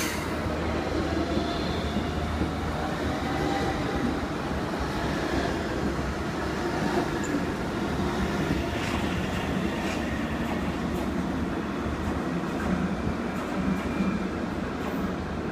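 Two coupled Hamburg S-Bahn class 474 electric multiple units pulling out of the station and running past on the rails, a steady rolling noise over a low hum, with faint wheel squeal.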